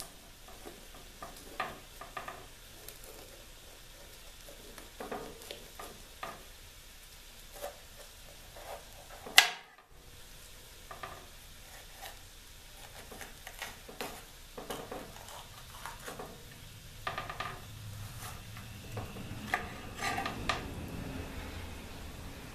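Kitchen knife tapping and clicking on a glass cutting board as a green bell pepper is cut in half and cored, with one loud sharp click about nine seconds in.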